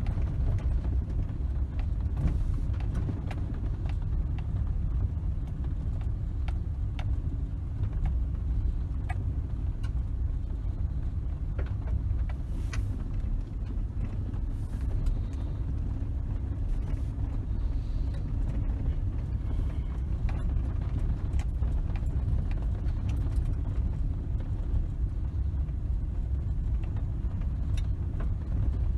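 Steady low road and engine rumble inside a vehicle's cab as it drives along a dirt track, with scattered light clicks and rattles throughout.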